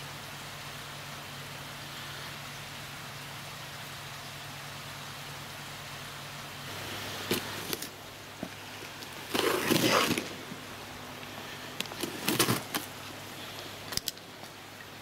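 Cardboard box being opened by hand, tape ripped from the lid: a steady hiss at first, then from about halfway through a click, one long rip lasting about a second, and shorter rips and clicks after it.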